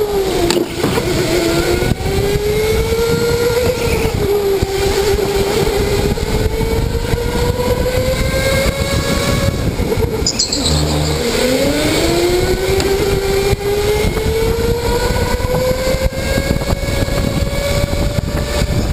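Electric go-kart motor whining as the kart is driven flat out, the pitch rising and falling with speed over a constant hiss of tyre and wind noise. About ten seconds in the whine drops sharply as the kart slows for a tight corner, then climbs steadily again as it accelerates out.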